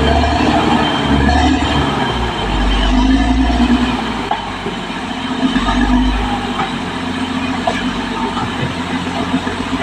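Caterpillar D6R XL crawler bulldozer on the move, its diesel engine running and its steel tracks rolling, with a rumble that swells and fades and a few sharp knocks.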